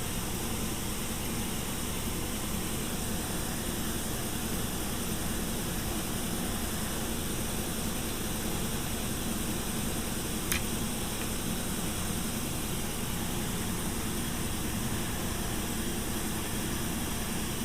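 Steady, even hiss of background noise, with a single light click about ten seconds in.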